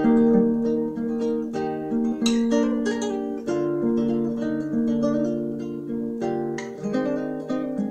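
Acoustic guitar playing a slow fingerpicked melody, single notes ringing over one another.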